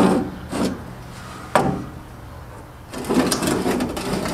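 A sharp tap of metal on metal about a second and a half in, then from about three seconds a steady scratchy rubbing: a marker pen and steel rule worked along the rusty steel cab floor of a Daihatsu F10 to mark a cut line.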